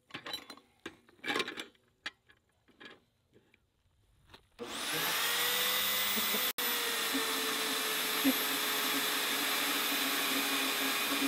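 A few light clicks and knocks. Then, about four and a half seconds in, a Vevor portable band saw's motor starts with a rising whine and runs steadily as the blade cuts through a 3/4-inch solid metal rod.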